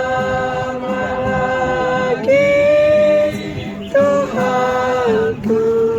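Singing or chanting voices holding long notes, each held for a second or more before moving to a new pitch, the highest note about halfway through.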